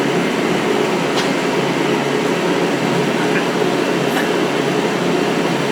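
Steady, loud mechanical drone of a running machine, with a few faint ticks over it.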